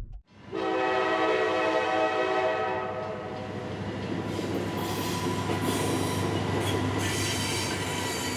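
Diesel freight locomotive horn sounding one long chord of about two and a half seconds, then the train running by with rumbling, clattering wheel noise.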